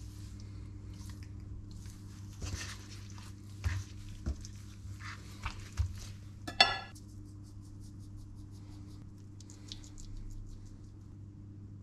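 Gloved hands handling a raw chicken breast on a wooden cutting board: soft taps, rubs and knocks. About six and a half seconds in, a kitchen knife is set down on a ceramic plate with a short ringing clink, the loudest sound. A low steady hum runs underneath.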